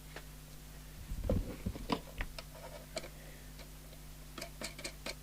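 Irregular light clicks and knocks of small hardware being handled on a workbench, over a steady low hum.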